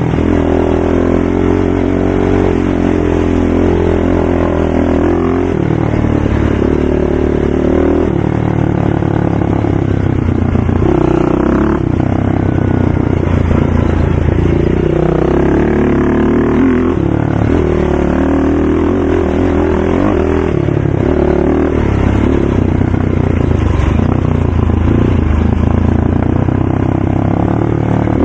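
ATV engine running hard, its pitch rising and falling repeatedly with throttle changes and gear shifts. Loud and continuous.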